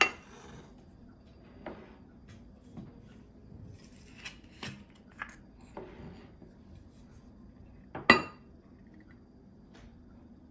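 Dishes handled on a wooden table: a plate and a glass bowl clatter and clink. A sharp knock comes at the start and another about eight seconds in, with lighter clinks and taps in between.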